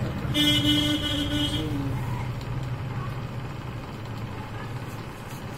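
A vehicle horn sounds once, a steady held tone lasting about a second and a half, over a low rumble of passing traffic that slowly fades.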